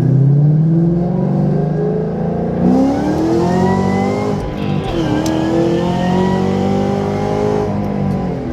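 Car engine accelerating, its pitch climbing, dipping sharply about five seconds in, then climbing again.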